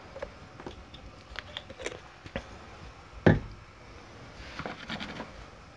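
Light clicks and knocks of kitchen items being handled on a worktop, with one louder knock a little past halfway and a short patter of small ticks near the end.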